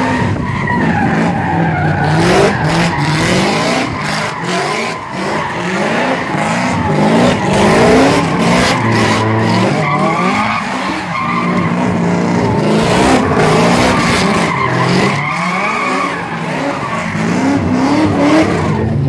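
Drift cars, one an old Toyota Corolla, sliding through a corner: engines revving hard, the pitch climbing and dropping over and over as the throttle is worked, with tyres squealing and screeching throughout.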